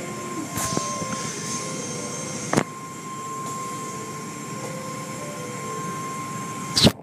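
Automatic car wash heard from inside the car: a steady rumble of wash machinery and water spray with a steady high whine, and two sharp knocks, one about two and a half seconds in and a louder one near the end.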